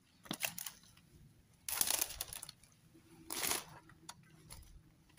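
Footsteps crunching through dry undergrowth and twigs: a few separate crunching steps, the loudest about two seconds in.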